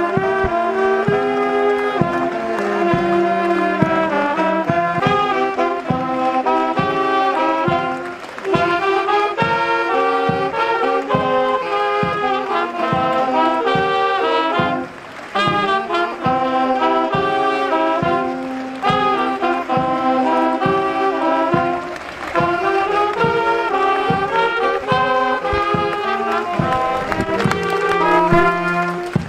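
Brass music, several horns playing a tune together over a steady beat of about two strokes a second.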